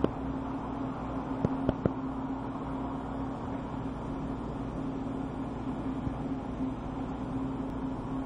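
Steady hum with a constant low tone, broken by a few short sharp clicks about a second and a half to two seconds in.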